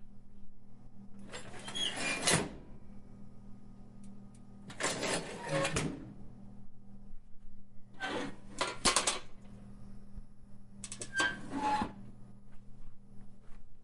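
Heavy industrial metal hinge creaking and squeaking as it swings, four movements of about a second each, with a low steady hum underneath.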